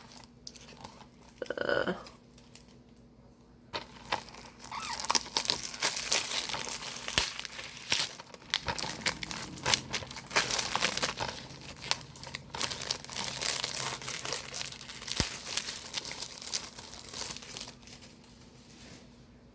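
Plastic shrink-wrap being torn and crinkled off a DVD box set: a dense run of crackling and ripping from about four seconds in, dying away near the end.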